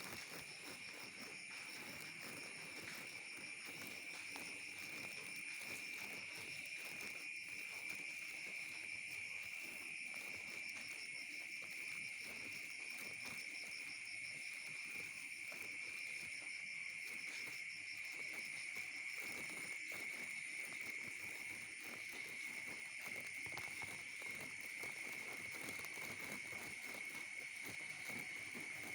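Insects chirring steadily in one continuous high trill, over the light patter of drizzle.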